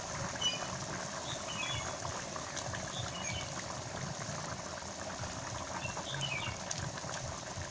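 Pot of chicken and potato curry bubbling and sizzling steadily on the fire, a continuous crackling hiss of the cooking.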